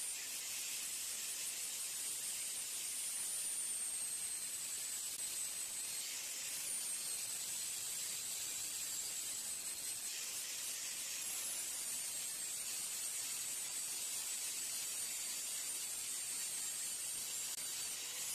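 Angle grinder with an abrasive disc cleaning a steel hammer head: a steady hiss with a faint high whine whose pitch wavers and shifts a few times.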